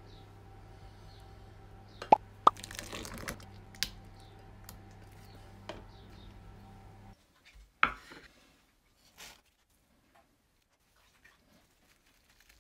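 Kitchen handling sounds over a steady hum. A spoon clinks sharply twice against a stainless steel saucepan, with scraping and a few lighter knocks after. Once the hum cuts out, a plastic lid clacks onto a container, followed by faint knife scrapes.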